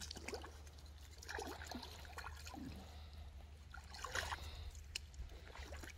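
Faint splashing and trickling of shallow river water as fish are rinsed and cleaned at the water's edge, with scattered short clicks and scrapes from the knives and fish being handled.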